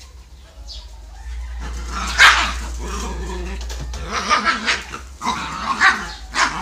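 Dogs barking while they play-fight: a loud bark about two seconds in, then a quick run of shorter barks in the last two and a half seconds.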